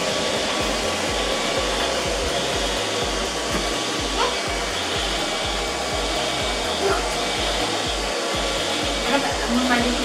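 iLife V1 robotic vacuum cleaner running, its suction fan and brushes making a steady, even whir, with background music's steady bass beat underneath.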